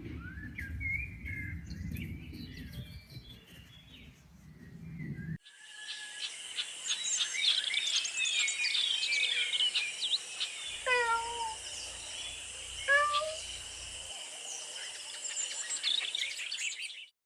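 Birds singing outdoors: at first a few chirps over a low rumble, then, after an abrupt cut about five seconds in, a dense chorus of many overlapping songs. In the middle a cat meows twice, with short falling calls about two seconds apart.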